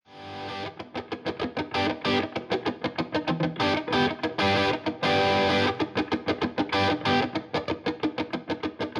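Intro music: fast, rhythmic electric guitar with distortion.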